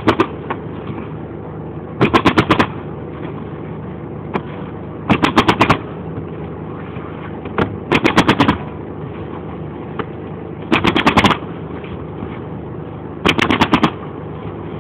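Pneumatic roofing nailer fired in rapid bursts of five or six nails, each burst about half a second long, repeating every two to three seconds. A steady hum runs underneath.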